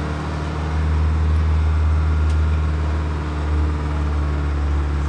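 Engine of a mid-1980s Carlyle-bodied Ford Transit minibus heard from inside the cab, running steadily at low speed as a low, even hum that swells slightly about a second in.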